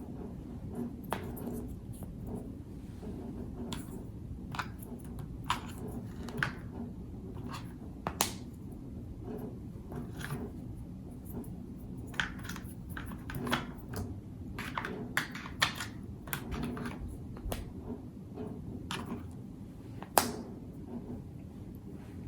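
Scattered small sharp clicks and taps, a few louder ones about 8 and 20 seconds in, over a steady low hum.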